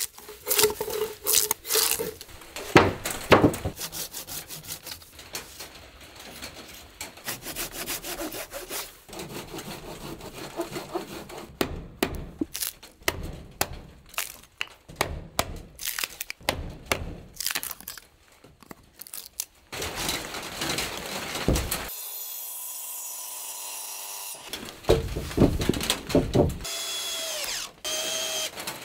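Woodworking by hand on log wood: many quick scraping and cutting strokes as bark is stripped from a log and a post is notched. Near the end a cordless drill whirs, rising and falling in pitch as it drives into the beam.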